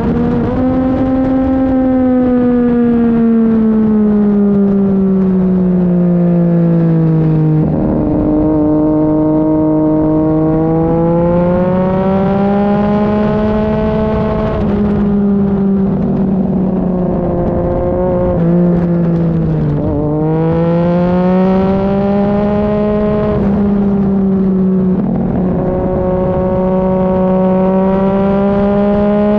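Sport motorcycle engine at track speed, its pitch falling as it slows and rising as it accelerates, with brief breaks in the note at gear changes several times. Wind rushes over the microphone.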